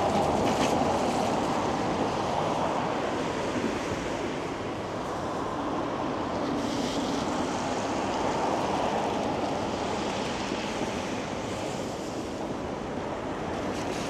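Steady city road traffic: a rushing noise of car tyres on the avenue that slowly swells and fades as vehicles pass.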